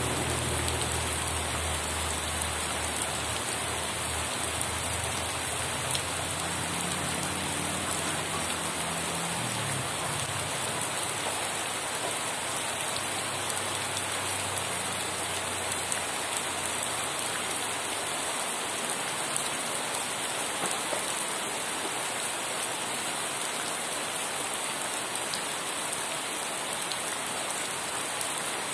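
Steady rain falling on surfaces, a dense even patter. In the first ten seconds or so a low rumble sits underneath and then fades away.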